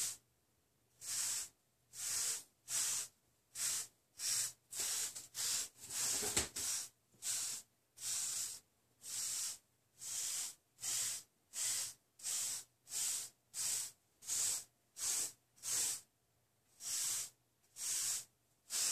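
Wave brush bristles swishing over short, waved hair in quick, even strokes, about one and a half a second.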